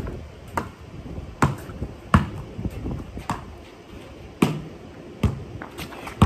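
A basketball dribbled on a concrete driveway: single bounces about once a second, unevenly spaced.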